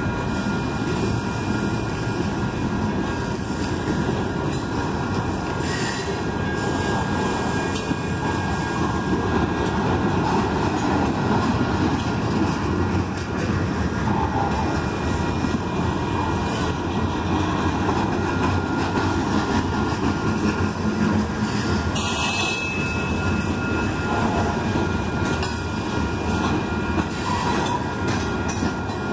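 Freight train of covered hopper cars rolling steadily past: a continuous rumble and rattle of steel wheels on rail, with thin steady high tones above it and a few sharp clacks.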